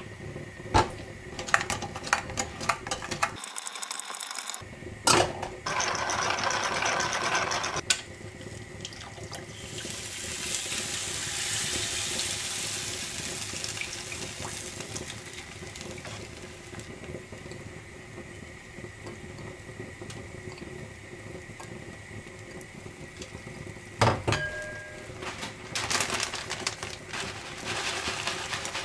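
Thin, watery takoyaki batter pouring from a pitcher into the wells of a takoyaki pan, a steady stream lasting several seconds, with scattered clicks and knocks of utensils around it. Near the end, shredded cheese patters out of a bag onto the batter.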